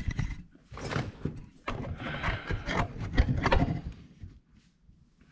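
Handling noise from a camera being set down and positioned on a surface: a string of irregular knocks, taps and scrapes that stops about four seconds in.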